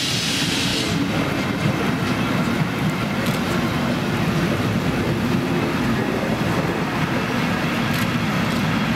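Steam-hauled passenger train pulling out, its coaches rolling past with wheels clattering over the rails. A hiss of steam cuts off about a second in.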